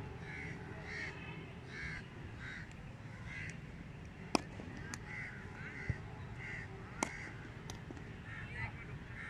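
Crows cawing over and over, one to two caws a second, with two sharp cracks of a cricket bat striking the ball, one midway and one a couple of seconds later.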